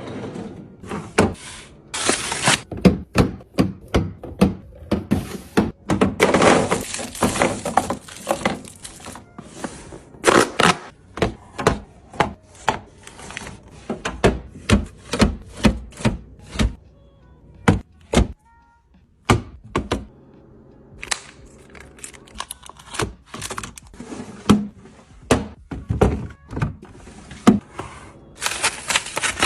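Items and containers being handled and set down while a fridge is restocked: a quick, irregular series of knocks, taps and clunks, broken by a few longer noisy stretches, the longest about a quarter of the way in.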